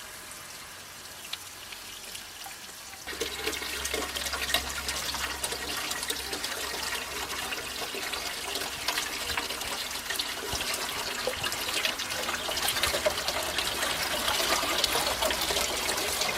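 Steady rushing, trickling water, which gets louder about three seconds in.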